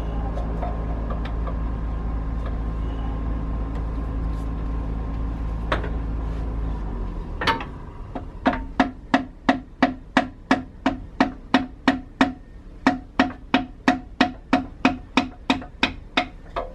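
Steady hammer blows, about two and a half a second, on a piece of wood held against a part of a DT466E diesel engine block to drive it up out of the cylinder bore. Before the hammering a steady machine hum runs and then stops about seven seconds in.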